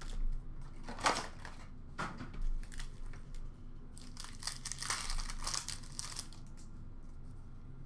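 Upper Deck hockey card pack wrappers crinkling and tearing as packs are ripped open by hand: two short bursts, then a longer stretch of crinkling a few seconds in.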